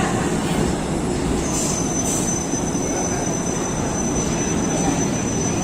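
Passenger train rolling along the rails with a steady rumble. A thin, high wheel squeal sets in about a second and a half in and holds.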